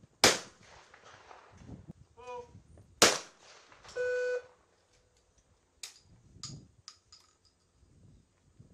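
Two shotgun shots about three seconds apart from over-and-under trap guns, the second just after a shooter's brief call for the target. A short electronic beep follows a second later, then a few light clicks.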